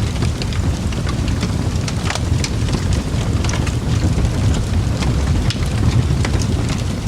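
Fire crackling in a fireplace: irregular sharp snaps and pops over a steady low rumble.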